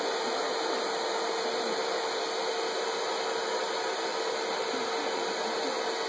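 Handheld hair dryer running on a steady setting: an even rush of air with a constant hum.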